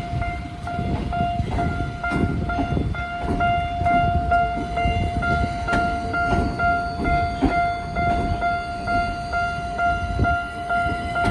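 A Japanese level-crossing alarm bell dings in a quick, steady repeat over the rumble and wheel clatter of a Tokyo Metro Ginza Line train passing over the crossing.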